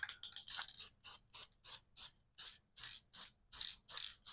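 Paint marker scratching on the steel around a truck door hinge in short, even strokes, about three a second.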